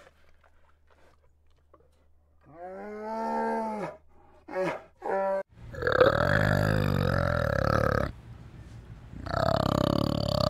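A few short calls that rise and fall in pitch from a bear. Then a loud, deep, rough call from a flanged male orangutan, which breaks off for about a second two-thirds of the way through and starts again.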